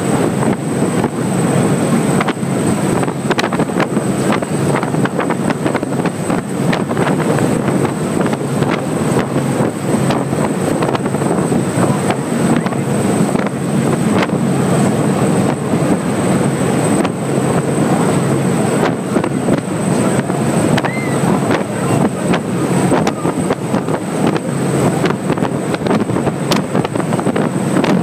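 Speedboat running at high speed: a steady loud engine drone mixed with the rush of water off the hull, and wind buffeting the microphone throughout.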